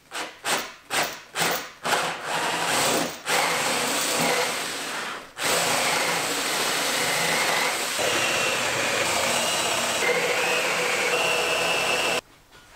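Cordless drill boring into a black walnut slab. The trigger is blipped in about six short bursts to start the hole, then the drill runs steadily into the wood, stops briefly about five seconds in, and runs again until it cuts off near the end.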